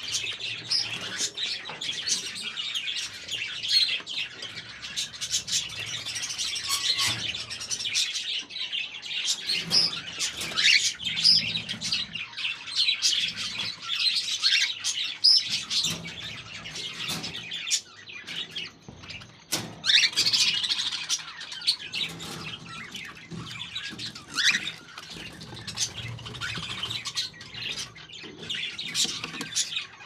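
A flock of caged parrots chirping and squawking, many short high calls overlapping without pause.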